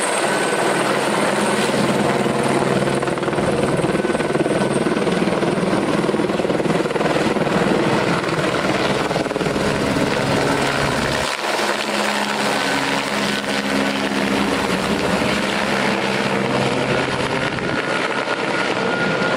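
Helicopter's rotor and turbine running steadily, a continuous loud wash of rotor noise with a low steady drone; the sound shifts abruptly about 11 seconds in.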